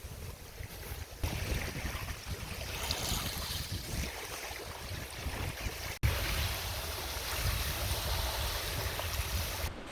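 Wind buffeting the microphone over a steady rushing like water. The sound breaks off sharply about six seconds in and resumes at once.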